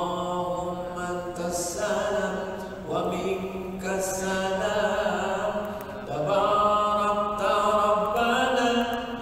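A man chanting in long, held melodic phrases, pausing briefly about three and six seconds in.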